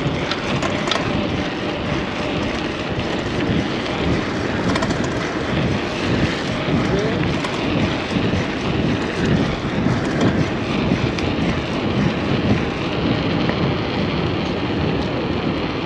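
Steady, rumbling wind rush buffeting the microphone of a bicycle rider moving fast, rising and falling without a break.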